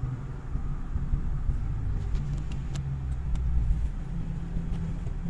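Ssangyong Musso's 2.9 turbo-diesel engine running as the vehicle drives at low speed, a steady low rumble heard from inside the cabin. A few faint clicks come about two to three and a half seconds in.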